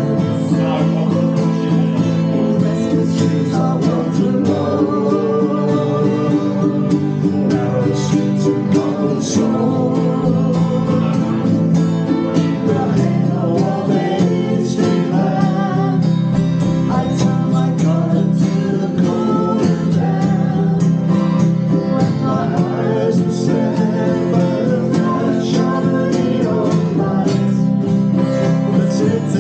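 Music led by acoustic guitar, playing steadily throughout.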